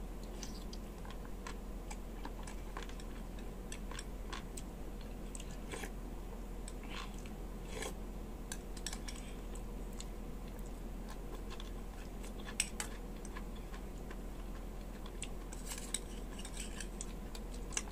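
Close-up eating sounds: wet chewing of soft, gelatinous beef skin and tendon from a beef-feet stew, with a metal spoon clicking against a stainless steel bowl now and then, the sharpest clicks about twelve and sixteen seconds in. A steady low hum lies under it all.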